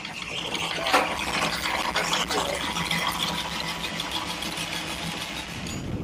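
Anchor chain paying out over the bow roller through the windlass as the anchor is dropped in about ten metres of water: a steady rattle, with a sharp knock about a second in.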